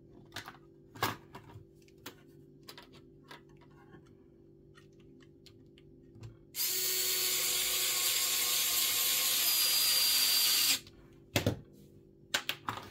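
Pen-style electric precision screwdriver running steadily for about four seconds, driving in the fan housing's retaining screw, then stopping abruptly. Light clicks and taps of handling come before and after.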